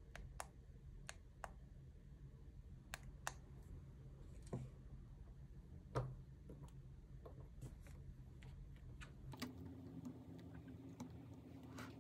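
Quiet, scattered light clicks and taps from hands handling gel-nail tools: long nail tips and a metal spatula knocking against a gel jar and a plastic palette. The loudest tap comes about six seconds in.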